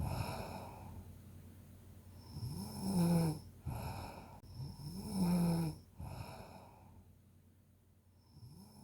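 A sleeping person snoring: three snores, each with a rising, buzzing pitch followed by a breathy tail that fades off, coming every two to three seconds, the last starting near the end.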